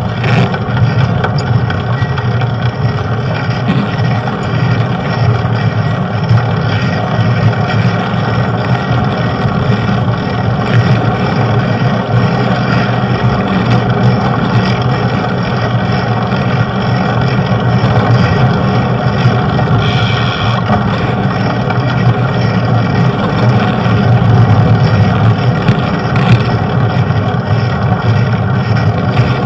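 Steady, loud wind and road rumble on the microphone of a camera riding along on a bicycle.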